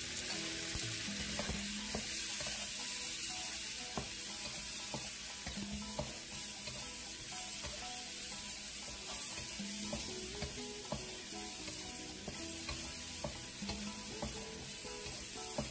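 Pork belly, garlic, onions and tomatoes sizzling in a hot pan as they are sautéed and stirred, with scattered clicks of the utensil against the pan. Soft background music plays underneath.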